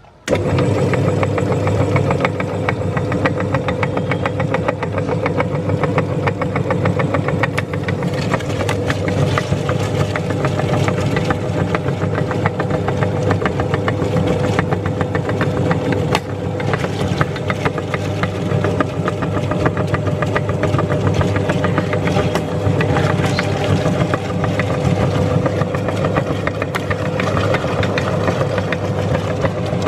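Electric meat grinder switched on just after the start, its motor running steadily under load with a dense crackle of lemon being crushed through it.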